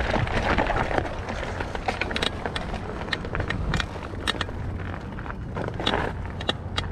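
Mountain bike rolling over a dirt trail: tyres crunching on dirt and stones, with frequent sharp clicks and rattles from the bike and a low rumble throughout.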